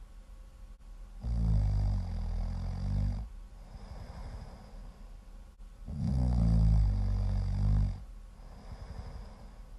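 Loud snoring: two long, low-pitched snores of about two seconds each, roughly five seconds apart, with softer breathing in between.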